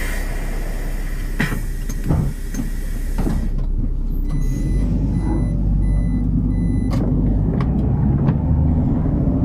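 City bus at a stop: a loud hiss of compressed air for about three and a half seconds, then a run of short, high, repeating warning beeps while the bus engine runs and grows louder, with a few sharp clicks near the end.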